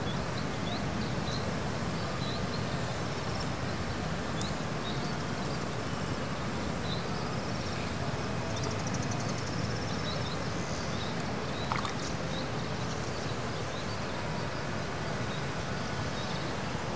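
Steady outdoor noise with many short high chirps scattered throughout, and a single brief click about twelve seconds in.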